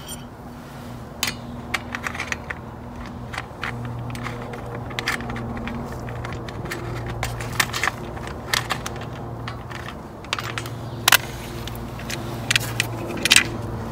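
Scattered light clicks, taps and small metallic rattles of hands fitting a plastic radiator side cover and its mounting screw, with a couple of sharper clicks near the end.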